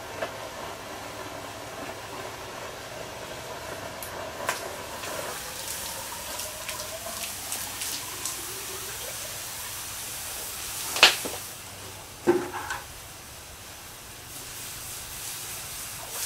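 Steam hissing and water boiling off a hot steel cannon tube as it is quenched after shrink fitting, the outer tube still at about 500 to 600 degrees. A loud sharp clank comes about eleven seconds in, with a smaller knock a second later.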